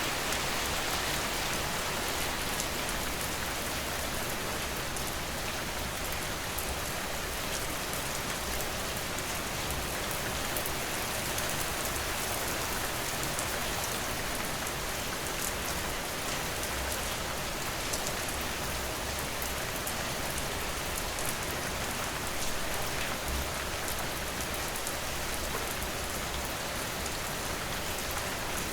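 Steady rain falling and pattering on a surface, with many small drop ticks.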